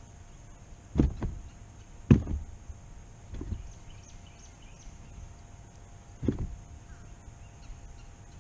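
A few short, low thumps against the kayak: two close together about a second in, a loud one just after two seconds, a softer one a little later, and another past six seconds.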